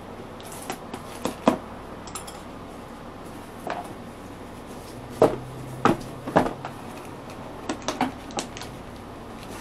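A wooden chopstick poking and scraping at the packing tape on a cardboard box, and the box being handled, giving irregular sharp taps and knocks.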